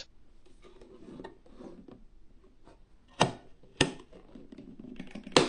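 DDR5 RAM stick being handled and pressed into a motherboard memory slot: faint rubbing and handling, then three sharp clicks, about three seconds in, just under a second later, and near the end, as the slot's retention latches snap shut on the seated module.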